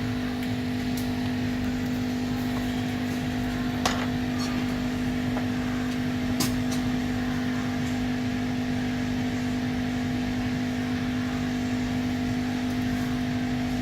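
Steady low background hum with a strong fixed tone, from room equipment, and a couple of faint clicks about four and six and a half seconds in.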